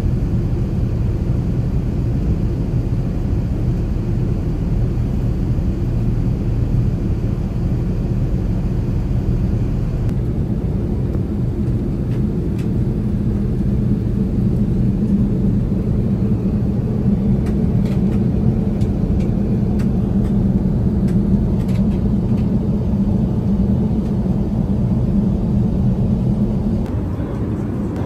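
Steady rumble of an Airbus A380 in flight, heard inside the passenger cabin: engine and airflow noise, with a few faint clicks about halfway through.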